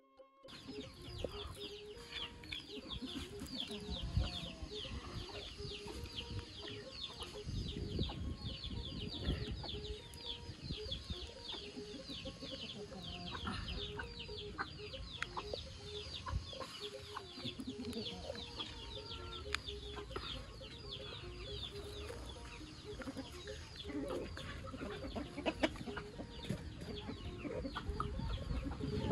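Domestic chickens clucking, with a busy run of high, short peeps throughout and a low rumbling noise underneath.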